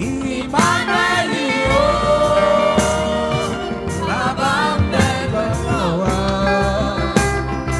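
Yoruba gospel praise music: a sung vocal line with melismatic runs over keyboard and a steady bass-and-percussion beat.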